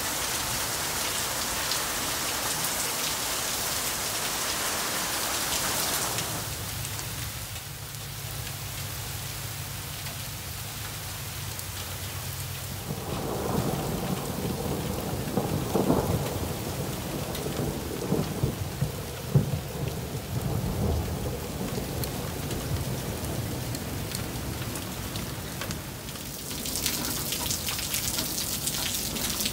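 Heavy rain and hail pouring down in a steady hiss, easing after about six seconds. Thunder then rumbles through the middle, with a few louder cracks. The heavy downpour comes back near the end.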